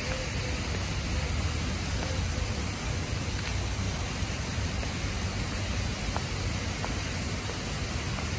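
Many pop-up lawn spray sprinklers watering grass: a steady hiss of water spray.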